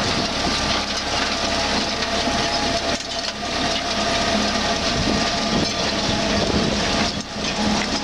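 Grimme potato harvester lifting a row: steady clattering and rattling of its digging gear and conveyor webs carrying soil, haulm, stones and potatoes, over continuous machine running noise with a steady whine.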